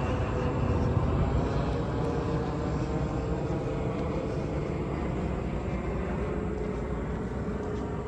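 A steady engine rumble with a hum that slowly falls in pitch.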